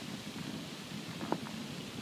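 Campfire burning with a steady low rush of flames and one sharp crackling pop a little over a second in.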